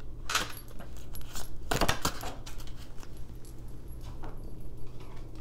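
Oracle cards being handled and shuffled: intermittent rustles and clicks with light jingling clinks, loudest about two seconds in.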